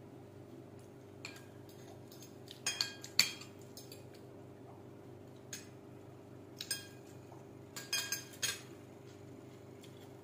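Metal spoon and fork clinking and scraping against a ceramic plate during a meal, in scattered clusters of clinks with the loudest group about three seconds in. A steady low hum runs underneath.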